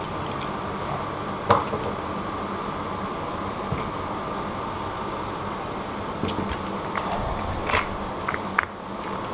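A few short clicks and knocks of hands and tools working on a bicycle wheel, over a steady background hum.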